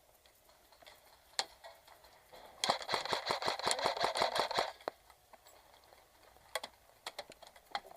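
Airsoft electric gun firing a full-auto burst of about two seconds, a fast even chatter of shots, with a few single sharp snaps before and after.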